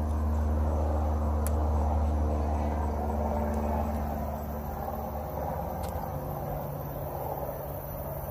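Low, steady engine rumble, easing slightly after about five seconds, with crickets chirping faintly.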